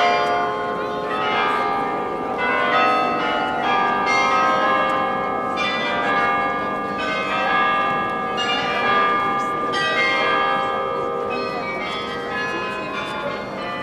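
The Mafra Palace carillon playing a piece of music. Many tuned bells are struck in quick groups of notes about every second or so, and their tones ring on and overlap.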